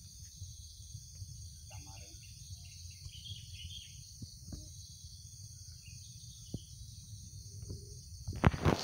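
Outdoor garden ambience: insects chirping steadily over a low rumble of wind or handling noise on the microphone. Just before the end, a short burst of loud bumps and rustling as the phone camera is moved.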